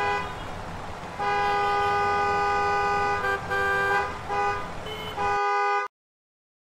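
Vehicle horns honking over the rumble of street traffic. There is a long blast of about two seconds, then a second horn of a different pitch joins, followed by several short toots. The sound cuts off abruptly to silence near the end.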